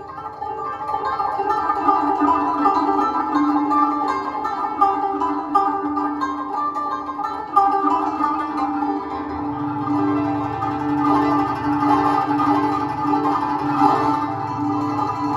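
Live band music led by a guzheng, a Chinese plucked zither, playing a run of ringing notes, with a deep low part coming in about two-thirds of the way through.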